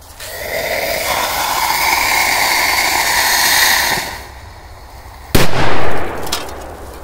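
Loud hissing from a burning pyrotechnic charge for about four seconds, then a single sharp firecracker blast about five seconds in that blows a tin drinks can apart.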